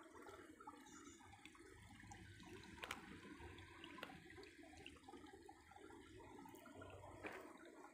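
Faint, steady trickle of running water from a shallow stream, with a couple of light clicks.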